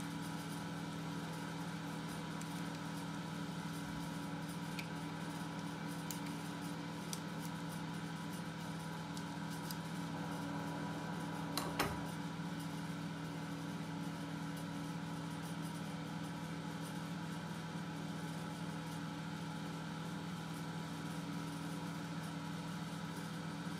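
A steady mechanical hum, like a fan or motor, with a few faint ticks of a hex key on handle screws and one sharper click about halfway through.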